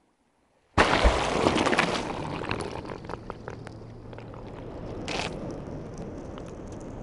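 Underwater sound from a DTAG suction-cupped to a humpback whale: a sudden rush of bubbling, crackling water noise that starts about a second in and settles into a steady wash, with a brief burst of hiss about five seconds in.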